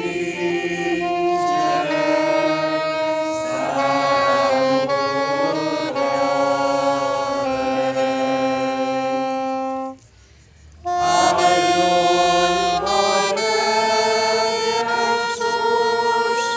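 Wind instruments play a slow, solemn anthem in long held chords. The music breaks off for about a second near the ten-second mark and then resumes.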